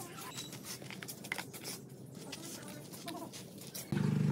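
Faint scraping and light clicks of hands working a heap of sand and mortar mix. Near the end a loud, steady low hum cuts in suddenly.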